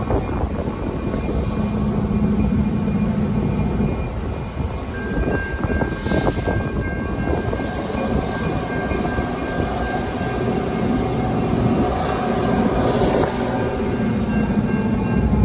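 Approaching EMD GP38-2 diesel locomotive, its engine rumbling steadily. About five seconds in, a steady high ringing tone starts, the grade crossing's warning bell as the crossing lights begin flashing and the gate arm lowers.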